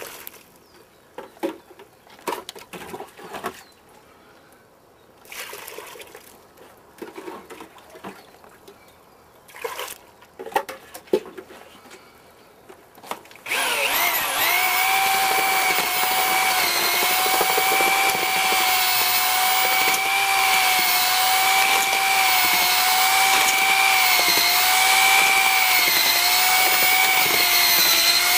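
Scattered pouring and handling sounds at a 5-gallon plastic bucket. About thirteen seconds in, an electric drill starts and runs steadily, driving a bucket mortar mixer's auger through dry-pack mortar (deck mud). Its whine wavers slightly in pitch as the load changes.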